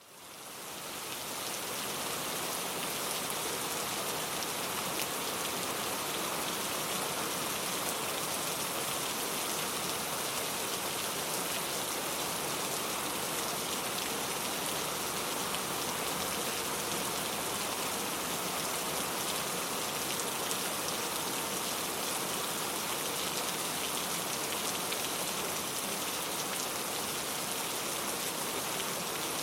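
Heavy rain falling steadily, a dense even hiss of drops on surfaces. It fades in over the first second or two, then holds steady.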